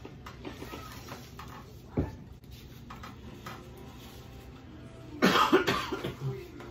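A short burst of coughing, a few coughs close together about five seconds in. A single light knock comes about two seconds in.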